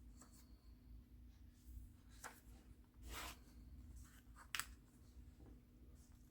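Faint handling of paper journal pages: a few soft rustles and swishes, with one sharper tap or click about four and a half seconds in, over a low steady hum.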